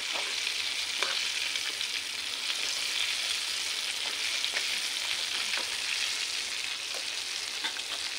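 Coated chicken pieces deep-frying in hot oil: a steady sizzle, with a few faint clicks scattered through it.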